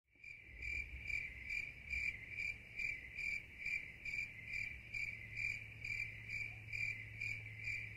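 A cricket chirping steadily, a little over two high chirps a second, over a faint low hum.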